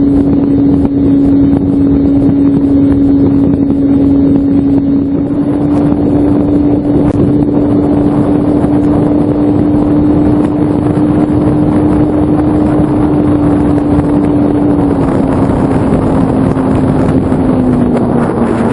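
Electric motor and propeller of a Skywalker FPV model plane droning at a steady pitch in flight, with wind rushing over the airframe. The pitch drops slightly about fifteen seconds in and again near the end, as the throttle eases.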